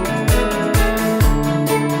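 Background music with a steady beat: a low drum hits about twice a second, then drops out about three-quarters of the way through while the bass and higher percussion carry on.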